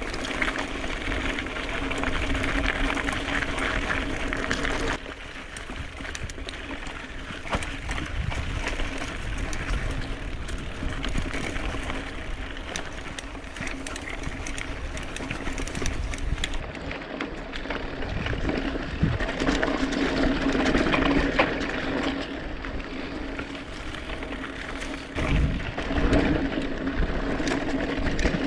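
Mountain bike rolling over a gravel and dirt trail: steady tyre noise with rattling and knocking from the bike over the rough ground.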